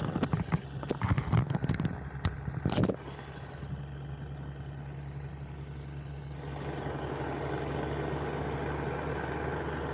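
Boat engine running steadily with a low hum, with a run of sharp knocks and rattles over the first three seconds.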